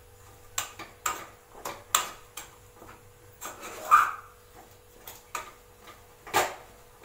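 Metal spoon knocking and scraping against a small aluminium saucepan while stirring a thick flour mixture for mudde: about ten irregular clicks and knocks, the loudest about four seconds in with a short ring.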